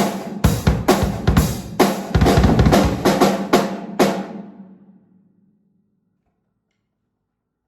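Drum beat, a quick run of drum and cymbal hits that ends on a last hit about four seconds in, which rings out and fades away to silence.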